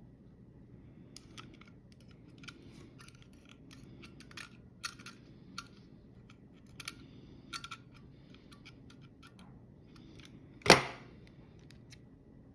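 Small metallic clicks and ticks of a snap gun and tension tool working in a lock, then one loud sharp snap of the snap gun's trigger firing near the end.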